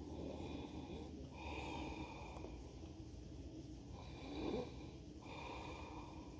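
A man snoring in his sleep, a rasping snore with each breath several times over, the loudest about four and a half seconds in.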